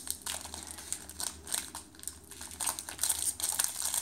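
Foil wrapper of a Pokémon card booster pack crinkling and crackling in irregular bursts as it is gripped and pulled at, the pack being hard to tear open.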